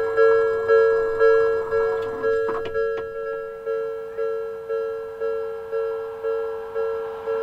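Japanese railway level-crossing warning bell ringing, a clear ding that strikes and fades about twice a second: the crossing is warning of an approaching train.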